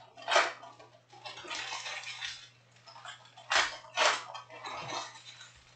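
Foil wrappers of Panini Prizm trading-card packs crinkling and tearing as the packs are ripped open by hand, with the cards inside rustling. The sound comes in several sharp bursts, the loudest about half a second in and again around three and a half and four seconds in, over a faint steady low hum.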